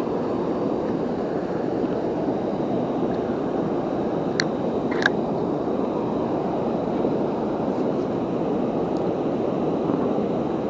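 Waterfall and fast river current rushing steadily, with two light clicks about half a second apart midway.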